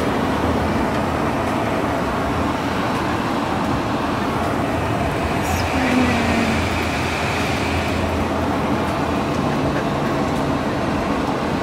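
Steady road noise heard from inside a Sprinter passenger van cruising on a highway: a constant tyre and engine drone.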